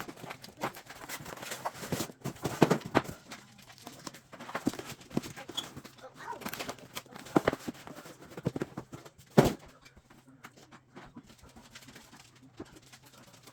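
Irregular knocks, taps and rustling from handling a box and its packaging, with a louder sharp knock about nine and a half seconds in.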